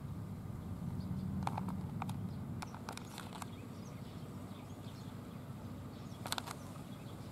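Outdoor garden ambience: a low rumble of wind on the microphone with faint, distant bird chirps. Several sharp clicks, about two a second between roughly one and a half and three and a half seconds in, and a quick cluster of clicks near the end.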